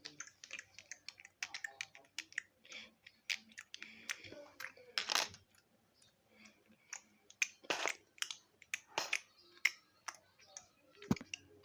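Light, irregular clicks and taps of a spoon against toy dishes and cups as they are handled.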